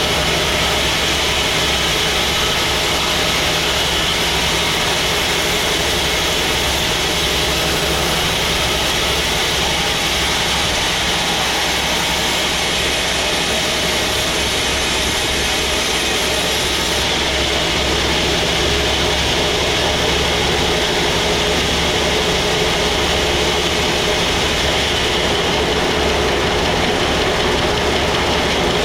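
Sawmill machinery running steadily: a low engine hum under a continuous hiss.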